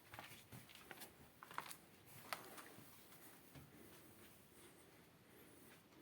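Near silence: a few faint clicks and soft rustles in the first couple of seconds, then only a quiet steady hiss.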